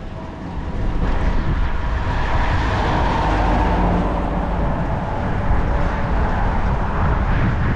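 Traffic on the highway bridge alongside, with one vehicle passing about three seconds in, over steady wind rumble on the microphone.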